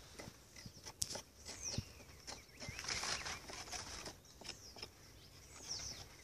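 Birds calling with short, high whistles that slide downward, heard three times. Under them, a sharp click about a second in and a rough scraping patch around three seconds, from a knife scraping the exposed cambium of a breadfruit branch.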